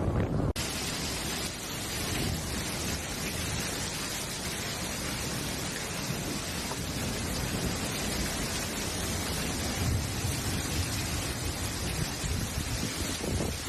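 Heavy rain pouring steadily, with low rumbles of thunder swelling about two-thirds of the way through. It starts with half a second of wind buffeting the microphone, which cuts off suddenly.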